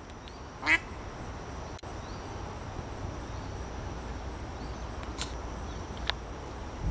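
Pond-side ambience of crickets chirring steadily at a high pitch over a low outdoor rumble, with one short, louder call near the start and a couple of faint chirps later.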